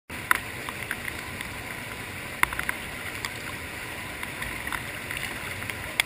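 Steady rushing of a waterfall pouring into a pool, with a few sharp ticks of splashing water.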